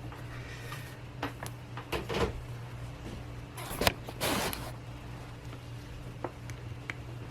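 Light clicks and knocks of a charging cable being handled and pushed into a phone's freshly cleaned charging port, with one sharper click about four seconds in and a short scrape just after it. A steady low hum runs underneath.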